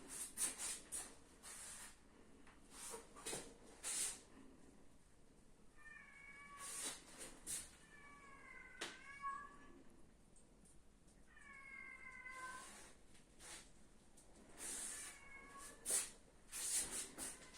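A cat meowing about four times, each call a second or so long, with short bursts of scraping or rustling noise in between.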